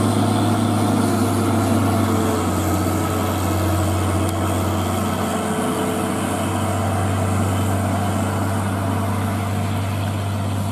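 Diesel engine of a loaded tandem-axle box truck pulling steadily uphill as it passes, a deep steady drone that eases off a little toward the end.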